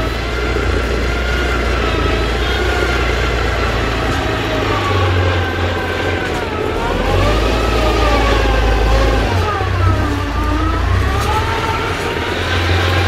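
Engine of a tracked rice-hauling tractor laden with sacks of rice, running loudly as it drives over a rough harvested field. Its pitch rises and falls repeatedly as it works under load, and it comes closer.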